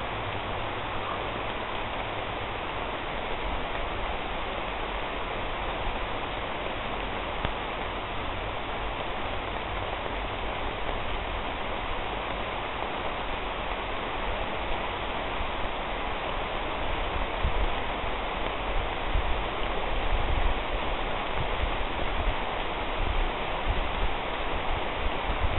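A steady rain shower pattering on the broad leaves of a horse chestnut tree, an even hiss. In the second half come more and more low rumbles.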